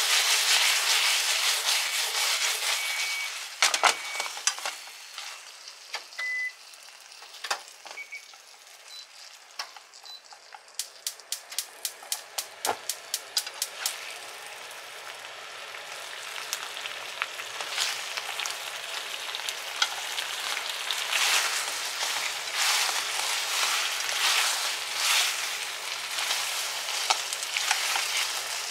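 Chicken wings sizzling in a sweet soy-and-sake sauce that is reducing to a glaze in a frying pan, with scattered pops. The sizzle is loud at first and dies down after about four seconds. A run of quick, even clicks follows, then the sizzle builds up again.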